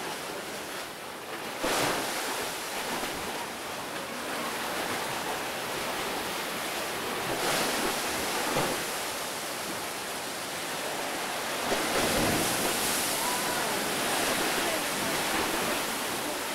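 Sea waves surging into a narrow rock chasm under an overhang, a steady rush of churning water. Louder surges come about two seconds in, around eight seconds, and again around twelve seconds.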